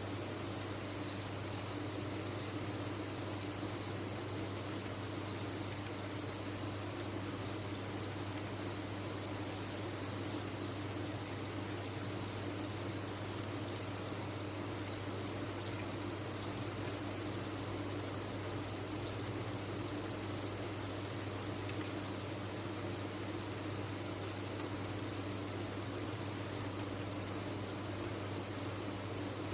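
Many farmed crickets chirping at once, blending into one dense, steady, high-pitched trill, with a faint low hum beneath.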